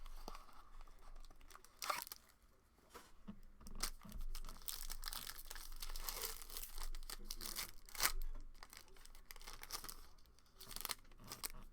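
Packaging being torn open and plastic wrapping crinkling as trading-card packs are opened, in irregular stretches with a few sharp clicks.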